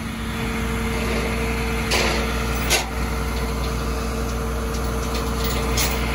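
Flatbed tow truck idling with a steady hum from its engine and hydraulic pump while the tilt bed is worked, with two short hisses about two and three seconds in.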